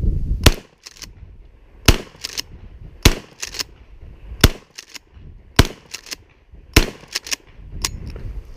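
Mossberg 500 12-gauge pump shotgun firing 00 buckshot, six shots about a second and a quarter apart. Each shot is followed by a quick double clack of the pump being worked to chamber the next shell.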